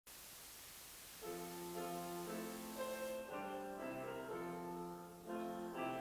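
Small church orchestra led by violins playing slow, held chords, beginning about a second in after a brief stretch of hiss.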